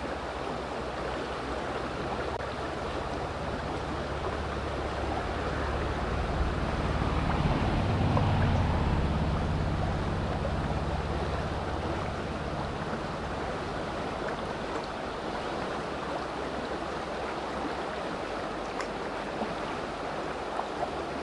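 Rushing water of a small mountain river, a steady rush, with a low rumble that swells and fades around the middle.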